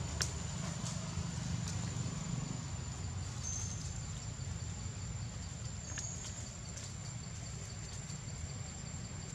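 Outdoor forest ambience: a steady low rumble under a thin continuous high tone, with a few faint clicks and two brief high chirps.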